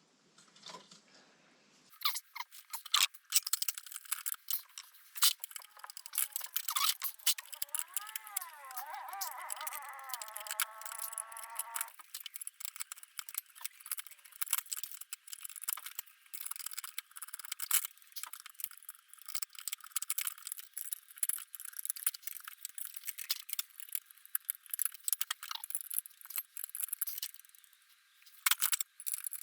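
Hand tools and small metal parts clicking and rattling in quick irregular knocks while a stubborn small bolt on the motorcycle's front end is worked. A wavering squeak runs through from about a quarter to about two-fifths of the way in.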